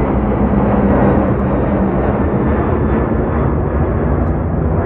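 Lufthansa Boeing 747-400's four General Electric CF6 turbofan engines at full power as the jet climbs out overhead just after takeoff. A loud, steady jet noise with a deep rumble.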